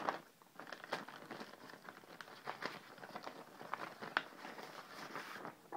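Faint rustling of paper leaflets and plastic packaging being handled, with scattered light clicks and taps.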